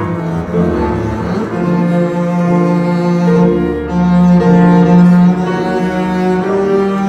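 Double bass bowed in a slow melody of long, held notes that change about once a second.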